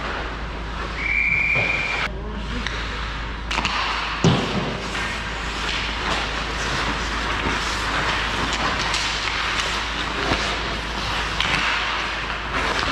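Hockey game play: a single steady whistle blast about a second long near the start, then continuous scraping and clatter of skates, sticks and puck, with a sharp knock about four seconds in.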